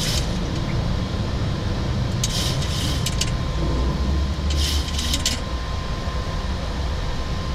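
Steady flight-deck roar of a Boeing 737 MAX 8 climbing just after takeoff: a continuous low rumble under engine and airflow noise. The rumble swells briefly about four to five seconds in, and two short bursts of high hiss come about two and five seconds in.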